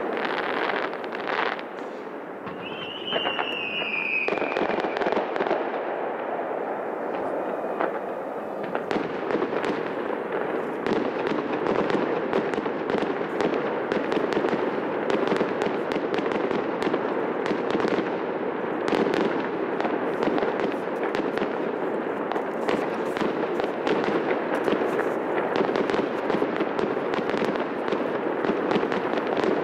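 Aerial fireworks bursting, with pops and bangs and the crackle of shells. About three seconds in a whistling firework sounds briefly, its pitch falling slightly; from about nine seconds in the crackling becomes dense and fast.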